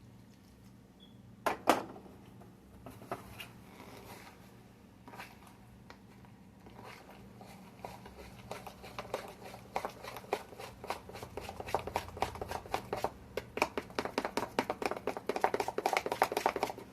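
Spoon stirring a batter mixture in a bowl, clicking quickly against the side several times a second and growing louder over the second half; a single sharp knock about a second and a half in.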